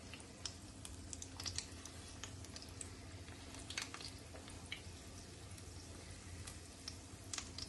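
Battered corn dogs deep-frying in hot oil in a pan: a faint, steady sizzle with scattered small pops and crackles.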